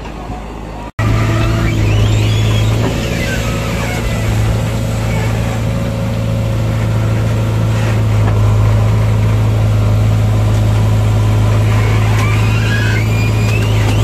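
JCB 3DX backhoe loader's diesel engine running steadily under load, heard from the operator's cab as a loud, even low drone, with faint rising and falling whines from the hydraulics as the arm works.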